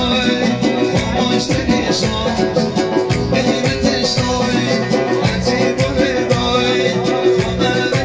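Male singer singing into a microphone over amplified live band music with a steady beat.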